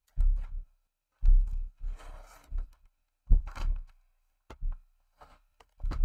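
Plastic top case of an ASUS X553S laptop being lifted off and set down on a wooden table: a series of dull thumps and knocks about a second apart, with a brief scraping rustle about two seconds in.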